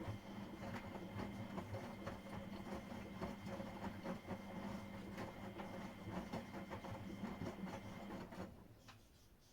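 Miele Professional WS5436 washing machine running mid-cycle: a steady motor hum with a faint high whine and many quick clicks and knocks from the turning drum. It stops about eight and a half seconds in, and a single click follows.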